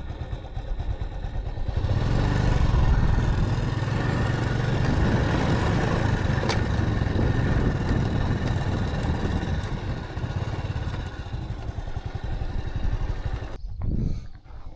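Motorcycle engine running, growing louder about two seconds in, holding steady, then dropping away near the end.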